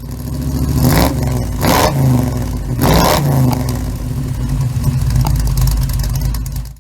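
Small-block Chevy 350 V8 with headers revved in three quick blips about a second apart, then running steadily until it cuts off suddenly.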